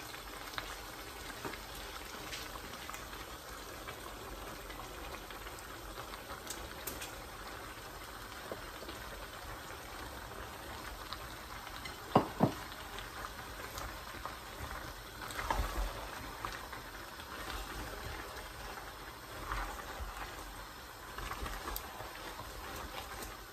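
Stew simmering in a pot with a steady low bubbling. About twelve seconds in, a wooden spatula knocks twice sharply against the metal pot, and later it scrapes and stirs through chopped okra in the pot.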